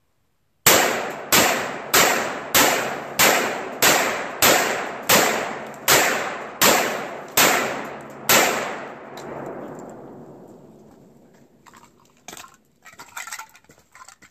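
AR-15 rifle firing .223 rounds in rapid semi-automatic fire: twelve shots, about one and a half a second, each ringing out. A long echo dies away after the last shot, then a few faint knocks near the end.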